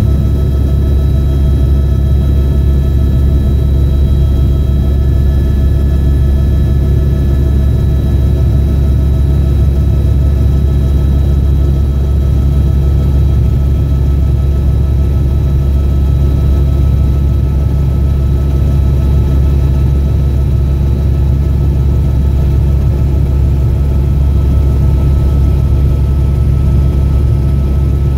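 Loud, steady drone of an aircraft engine, a deep low rumble with a few steady hum tones above it, unchanging throughout.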